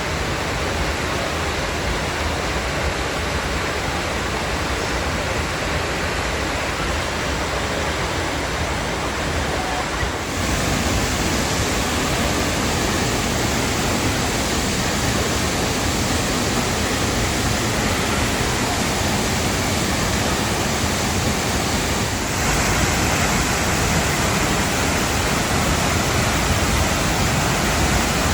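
Waterfall: a steady rush of falling water, which gets louder about ten seconds in and again near the end.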